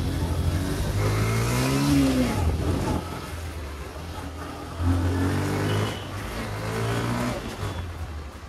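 Vehicle engine running under a steady low hum, revving up and easing off twice: once about two seconds in and again about five seconds in.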